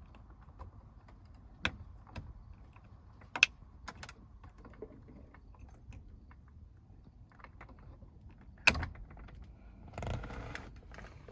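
Scattered sharp plastic clicks and taps from prying at the start-button trim in the dashboard, the two loudest about three and a half and nine seconds in, with a short stretch of handling rustle near the end.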